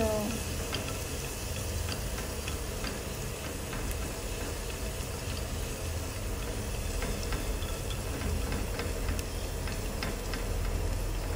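Minced garlic and chili sizzling in hot oil in a clay pot, with many small scattered crackles and pops as it is fried golden, over a low steady rumble.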